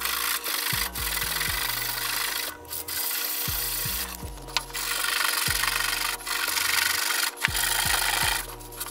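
Sandpaper rubbed by hand over a painted fiberglass car bumper, a scratchy hiss in repeated strokes with short pauses between them. The surface is being keyed so that body filler will bond to it.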